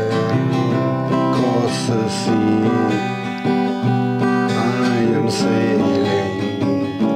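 Acoustic guitar strummed as a slow ballad accompaniment, with a man's voice singing over it.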